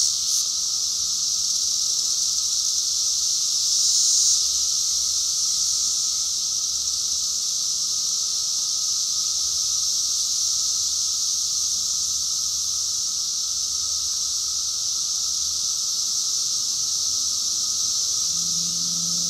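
Chorus of 17-year periodical cicadas singing in the trees, a steady high drone that swells briefly about four seconds in. A low hum comes in near the end.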